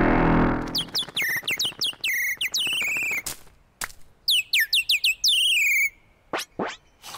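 Cartoon bird chirping: two runs of quick, high whistled tweets that fall in pitch with a wobble, then a couple of short falling whistles near the end. Music fades out at the very start.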